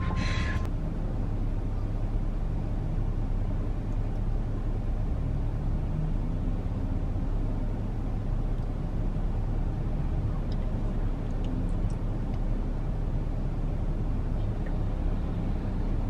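A car's engine idling, heard from inside the car's cabin: a steady low hum.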